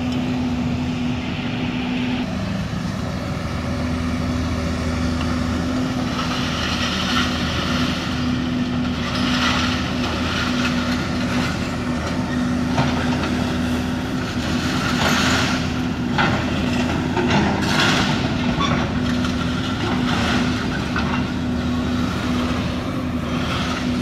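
John Deere 200D excavator's diesel engine running with a steady hum while it loads scrap metal into a steel dump truck bed. Repeated metallic clanks and crashes, mostly in the second half, as the scrap drops into the bed.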